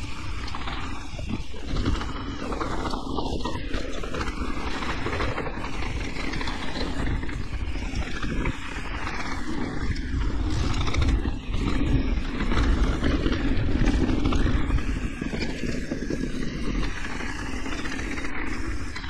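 Electric mountain bike riding down a rough enduro trail: a steady rush of wind on the microphone over tyre noise and the rattle and knocks of the bike on bumps, a little louder past the middle.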